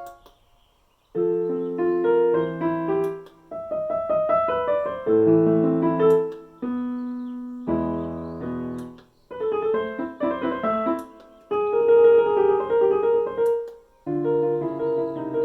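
Korg SP-250 digital stage piano played in chords and short runs of notes, in phrases of a few seconds separated by brief pauses where the notes die away.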